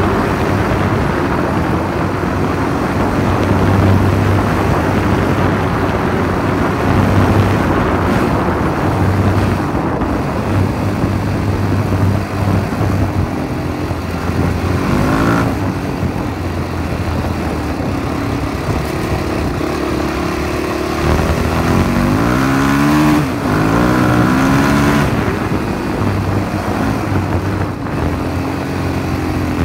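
Freshly rebuilt Yamaha WR450F's single-cylinder four-stroke engine running under way off-road, the revs rising and falling as the rider works the throttle, with a string of quick revs about three-quarters of the way through. Wind noise from riding runs under the engine.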